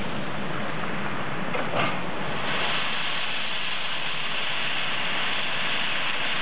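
Steam locomotive L-5231, a Soviet L-class 2-10-0, hissing steam steadily. There is a short clank about two seconds in, and the hiss then grows louder and sharper.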